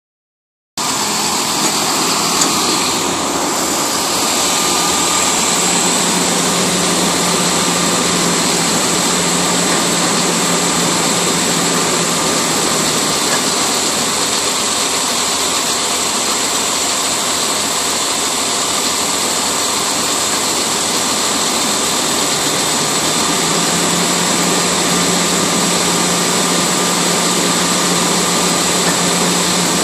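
Diesel engine of a waste collection truck running steadily, driving the hydraulics of its loader crane as the crane lowers its hook onto a recycling bin. A steady hum with a high steady tone above it, starting abruptly just under a second in.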